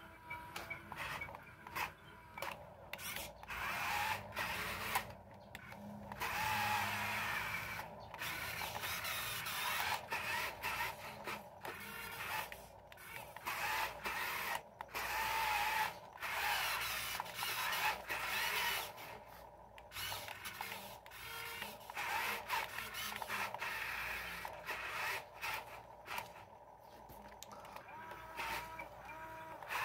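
The small electric motors of a radio-controlled wheel loader whirring in short stop-start bursts as it drives and works its bucket.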